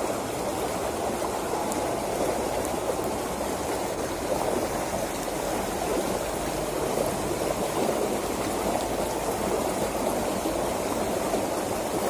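Steady rush of water flowing fast down a narrow irrigation ditch, splashing over small riffles.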